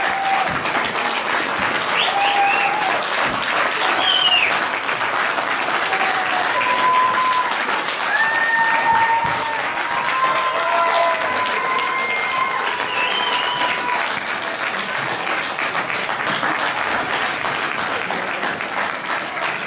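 Audience applauding, a steady run of dense clapping.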